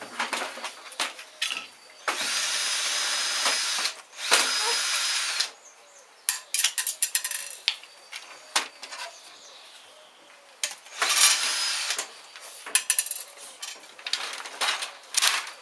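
Cordless drill-driver running in three short bursts of one to two seconds each, backing screws out of a washing machine. Clicks and clatter of loose parts come between the bursts.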